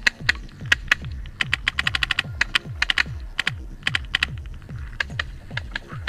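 Paintball marker firing: sharp shots in irregular volleys, with a fast run of about ten shots a second near the middle. Under them, electronic music with a steady kick-drum beat.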